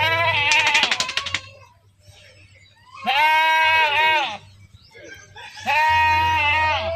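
Goats bleating: three long, loud calls a couple of seconds apart, the first with a quavering tremble.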